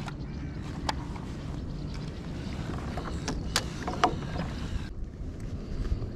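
Wind rumbling on the microphone, with a handful of light clicks and knocks from handling gear and fish on a plastic kayak deck. The sharpest clicks come about three and a half to four seconds in.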